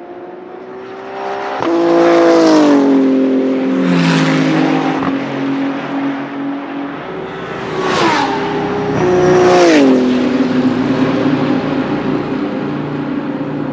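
BMW M4 GT3's P58 3.0-litre twin-turbo inline-six race engine, loud under hard acceleration, shifting up four times. Each shift comes as a short, sharp rasp, after which the engine note drops in pitch: about a second and a half in, near four seconds, near eight seconds and near nine and a half seconds.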